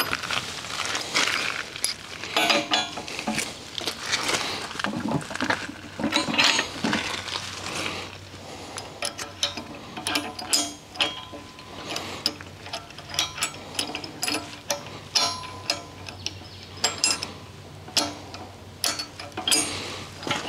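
Steel auger bit being fitted onto the hex drive shaft of a tractor loader-mounted auger: irregular metal clinks and knocks as the parts are slid together and the coupling pins are pushed in and clipped, some with a brief metallic ring.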